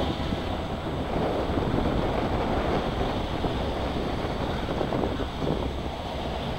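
Strong storm wind buffeting the microphone, over the low, steady rumble of an approaching EMD diesel freight locomotive.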